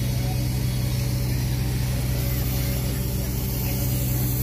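Engine of heavy rescue machinery running steadily at a constant speed, a low, even drone, with faint voices behind it.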